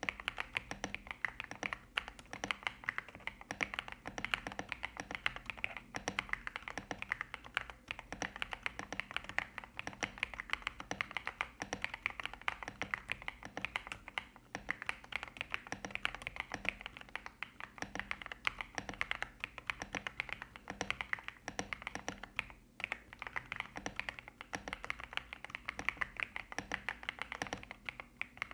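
Fast, continuous typing on a mechanical keyboard, a Kzzi K75 Lite with stock Rainbow linear switches and MOA-profile keycaps: a dense run of keystroke clacks, pausing briefly twice.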